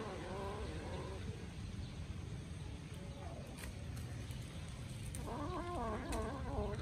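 Kitten growling over a piece of raw meat as it eats, a wavering, warbling growl in the first second and again from about five seconds in.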